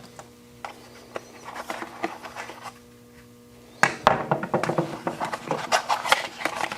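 Packaging and small accessories being handled: a few faint clicks and rustles, then from about four seconds in a busy run of sharp clicks, knocks and rustling.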